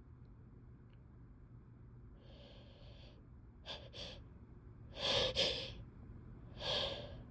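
A series of wet sneezes. A breathy gasp about two seconds in and two short sharp snorts are followed by the loudest sneeze, a double burst about five seconds in, and another sneeze near the end.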